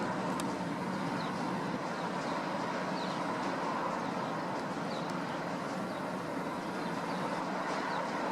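Aircraft engines running in a steady drone with a constant whine, heard from the ground during a go-around, with faint bird chirps over it.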